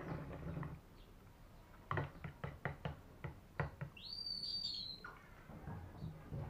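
A metal spoon clicks against a plastic food tub in a quick run of about eight taps. Just after it comes one high, chirp-like squeak that rises and then holds for about a second.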